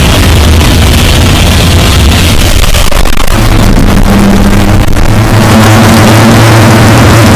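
Extremely loud, heavily distorted and clipped sound-effect audio: a dense, noisy rumble that changes about three seconds in to a harsher buzzing drone with steady low tones.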